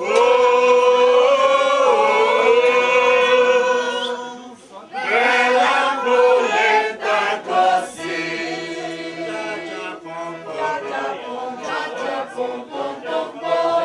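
A group of voices singing loudly together, holding long notes, over accordion and acoustic guitar. The singing drops away briefly about four and a half seconds in, then starts again.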